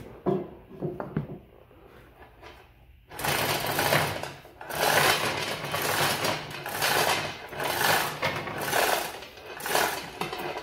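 Power impact wrench hammering on the bolt that holds a lathe headstock down, in about seven bursts of roughly a second each starting about three seconds in. Before that, a few light knocks of parts being handled.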